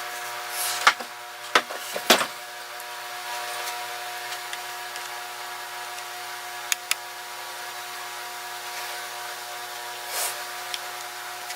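A steady hum with several sharp knocks and clicks over it, the loudest a pair about two seconds in and two quick ticks near the middle.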